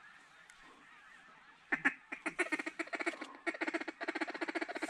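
Waterfowl calling: after a quiet start, a fast run of short honking, quacking calls begins a little under two seconds in and keeps going.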